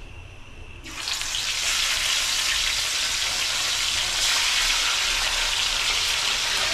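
Fish frying in hot oil: a loud, steady sizzle that breaks out suddenly about a second in.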